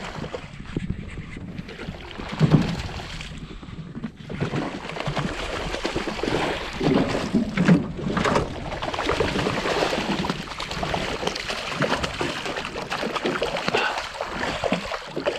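Wind on the microphone and water noise aboard a small fishing boat, uneven in level, with a few short knocks.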